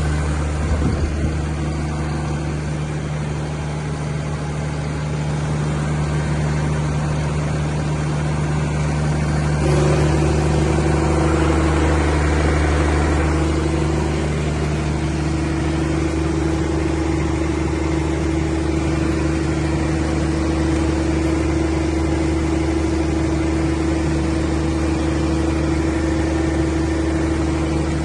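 Cummins open-type diesel generator set running steadily with a constant low engine hum. About ten seconds in it gets louder and a new mid-pitched hum appears, sags briefly, then holds steady.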